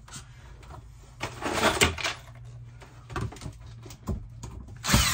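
A power drill run in short bursts, about a second and a half in and again near the end, driving a screw into a shower wall panel, with knocks and handling between the bursts. The screw has snapped.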